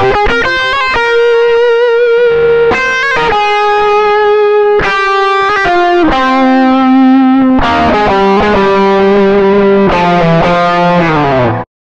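Distorted electric guitar music, long held notes changing every second or two, cutting off suddenly near the end.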